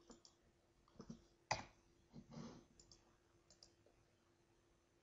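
Near silence with a few faint clicks, the sharpest about one and a half seconds in, from a computer mouse clicking to advance a presentation slide. A faint steady hum lies underneath.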